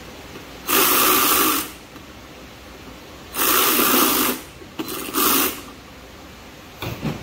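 Cordless electric ratchet running in three bursts as it drives screws into a generator's plastic cover panel: two runs of about a second each, then a shorter one, followed by a couple of light clicks near the end.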